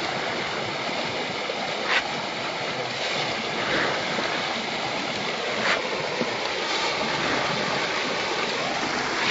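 Steady rush of running water, with a few brief sharp clicks over it.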